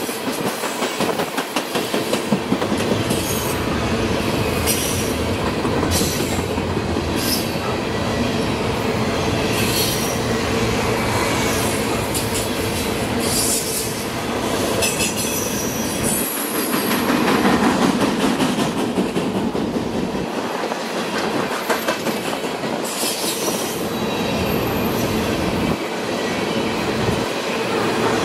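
Empty coal hopper cars of a freight train rolling past on a curve: a steady rumble and clatter of steel wheels on the rails, broken by repeated short, high-pitched squeals of wheel flanges against the curved rail.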